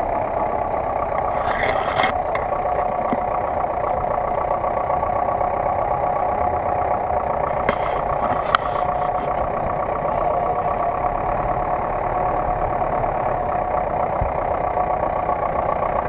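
GAZ-66 truck's engine running steadily at idle, close by.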